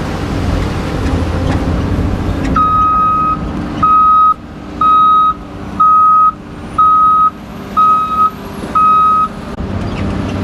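Backup alarm of a Caterpillar 725C articulated off-road dump truck, signalling that it is in reverse: seven steady beeps about one a second, the first one longer, over the diesel engine running.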